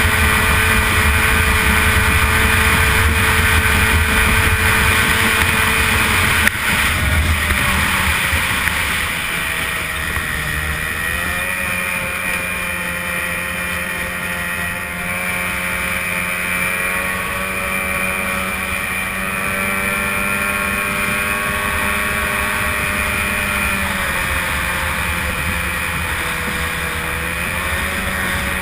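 Stock two-stroke racing outboard engine on an A-Stock hydroplane, heard onboard running hard at racing speed over water noise from the hull. Its note dips briefly and recovers about ten seconds in and again near the end.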